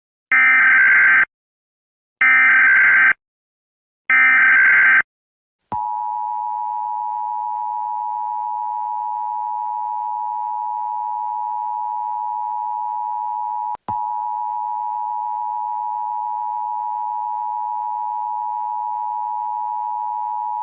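Emergency Alert System tones: three short bursts of warbling digital data from the SAME header, each about a second long, then the steady two-tone EAS attention signal held for about fifteen seconds. The attention signal has a brief click and dropout partway through.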